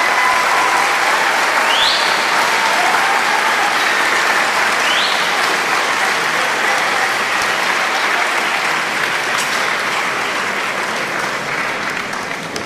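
Theatre audience applauding, with a held whistle at the start and two short rising whistles a few seconds in; the clapping slowly dies down.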